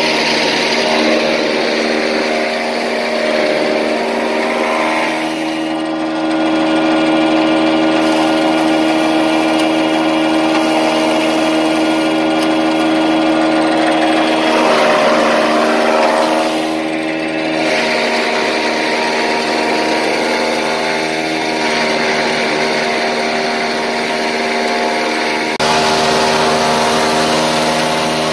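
JF 60 Maxxium forage chopper running off a tractor's power take-off, a steady mechanical hum with the tractor engine under it. Rough chopping noise swells and fades as grass stalks are fed in and the chopped forage is blown out the spout.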